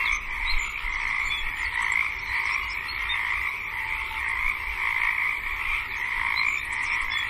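A steady, dense chorus of many calling animals, croaking in overlapping calls without a break.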